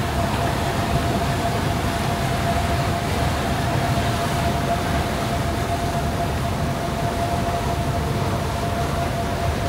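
Fast Cat M16 catamaran ferry under way: a steady low rumble from its diesel engines, with a constant high whine held throughout.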